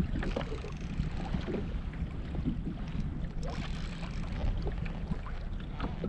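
Wind buffeting the microphone and water lapping against a kayak's hull, with scattered small knocks and splashes.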